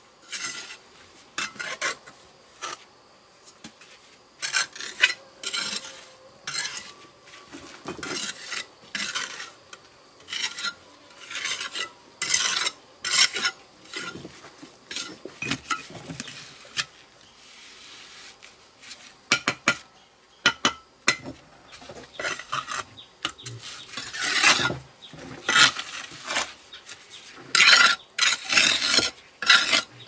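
Steel bricklaying trowel scraping and spreading cement mortar along a brick course, with bricks knocked and set into the mortar. Irregular short scrapes and clinks, busiest and loudest near the end.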